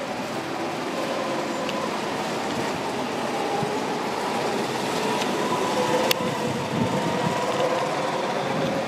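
Go-kart engines running around the track, a steady drone whose pitch drifts slowly up and down, with a single sharp click about six seconds in.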